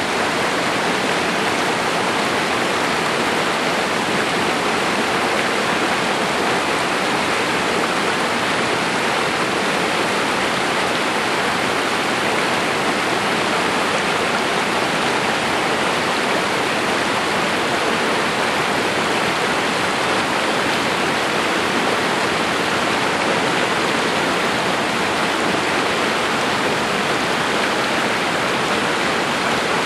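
Swift, rain-swollen mountain stream rushing and splashing over granite boulders in a steady, even roar of white water.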